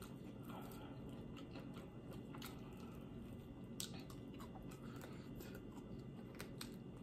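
Quiet chewing of an air-fried chicken wing, with a few sharp wet mouth clicks scattered through.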